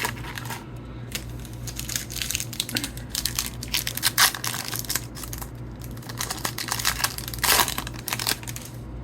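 Foil trading-card pack wrapper being torn open and crinkled by hand, an irregular crackling with a louder tear about three-quarters of the way through.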